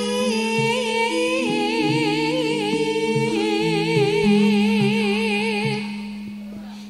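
A woman singing a long campursari vocal line into a microphone, holding notes with wide vibrato over sustained low accompaniment notes. The voice fades out about six seconds in.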